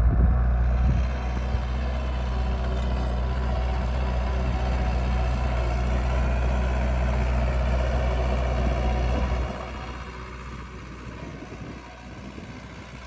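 Diesel engine of a New Holland TT4030 tractor running steadily, then growing noticeably quieter about two-thirds of the way through.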